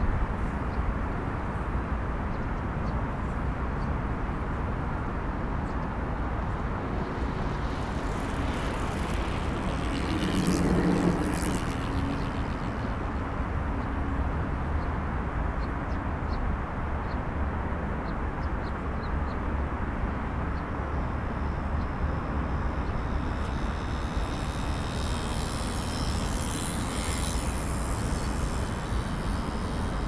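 Steady rumble of road traffic crossing a river bridge. One vehicle passes louder about ten seconds in, and a higher hiss joins for a few seconds near the end.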